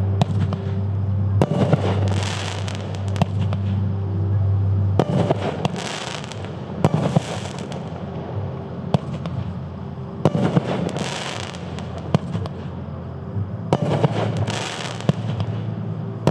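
350-gram multi-shot fireworks cake firing shot after shot, each launch a sharp bang every second or few, several followed by bursts of crackling from the breaks overhead.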